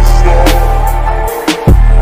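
Background music: a beat with heavy sustained bass and regular drum hits over steady synth tones, the bass dropping out for a moment about halfway through.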